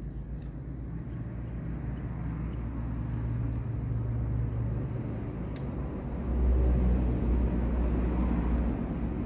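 Low, steady rumble of a running vehicle engine, growing louder about six seconds in.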